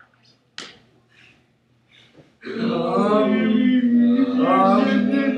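Young voices chanting together in one long drawn-out sung tone, a mock sung prayer. It starts about two and a half seconds in, after a near-silent pause broken by one short sharp sound.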